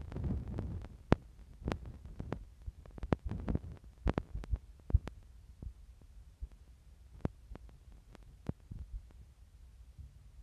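Irregular soft thumps and sharp clicks, typical of a handheld phone microphone being handled, with a low rumble underneath.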